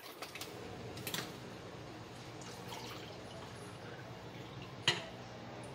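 Last drips of water falling from a mug into a ceramic bowl of water just after pouring, faint, with two short light knocks about a second in and near the end.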